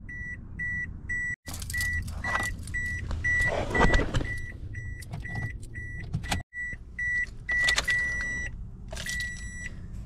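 A 2001 Toyota RAV4's warning chime beeping steadily, about three high beeps a second. Under it, the rustle and clicks of a scan tool's cable being handled and plugged into the car's diagnostic port.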